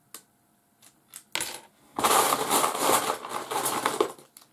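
Loose plastic Lego bricks clattering as a hand rummages through a plastic storage tub of pieces: a few single clicks, then a dense rattle from about two seconds in until shortly before the end.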